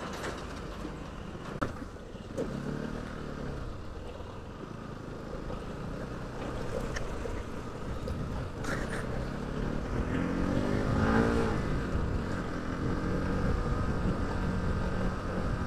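Motorcycle engine running under way. Its pitch climbs as it accelerates a few seconds in and again around ten seconds in, and it grows louder toward the end.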